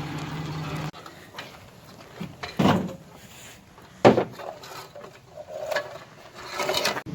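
A vehicle's engine hum that stops abruptly about a second in, followed by a few scattered knocks and thumps, two of them much louder than the rest.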